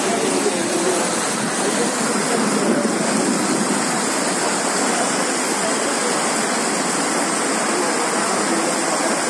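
Swollen river in flash flood, the fast floodwater rushing with a steady, even roar.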